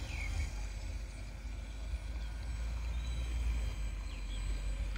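Radio-controlled model Mark V combat boat's jet drive running at speed, heard as a faint steady whine over a steady low rumble. A few short bird chirps come through.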